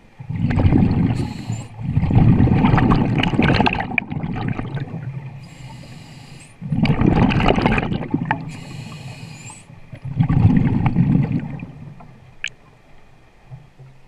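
Scuba diver breathing through a regulator underwater: loud gurgling bursts of exhaled bubbles about every three to four seconds, with a thin hiss of inhaled air between them.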